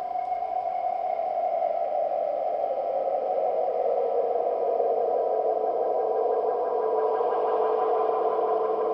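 A continuous buzzing drone with a fast flutter, slowly dropping in pitch and swelling a little louder over the seconds: a processed sound effect under the closing logo.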